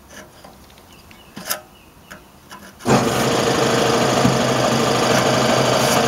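Faint clicks and ticks of needle-nose pliers on the thin sheet metal of a muffler's heater-box outlet, straightening a dent. About three seconds in, a loud, steady mechanical running noise starts abruptly and drowns them out.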